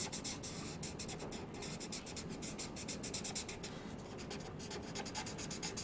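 Grayscale felt-tip marker rubbing across drawing paper in many short strokes in quick succession, shading a wall in a sketch.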